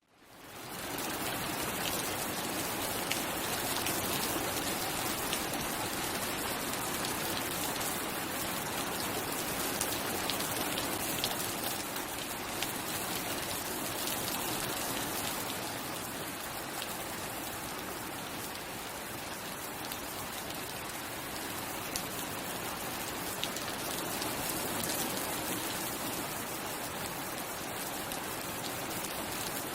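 Steady rainfall, a dense even hiss of drops hitting surfaces with scattered individual drop ticks, no thunder. It fades in over the first second.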